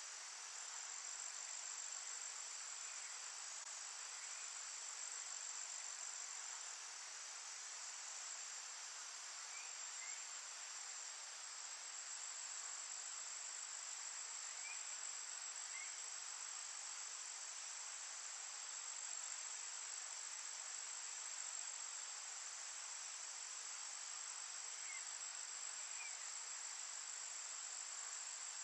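A steady, high-pitched chorus of crickets running without a break, with a faint pair of short chirps a few times.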